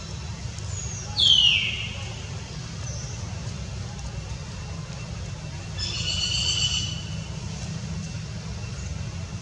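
Baby macaque crying: a loud high squeal that falls in pitch about a second in, then a shorter held high cry about six seconds in, over a steady low rumble.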